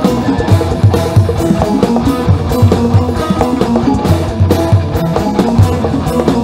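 Live band music with a steady drum-kit beat, bass and electric guitar.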